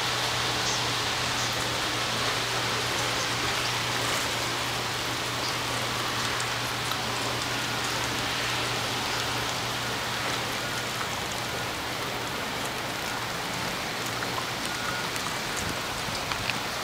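Steady rain falling on the harbour water and a submarine's wet deck: an even hiss with scattered drop taps.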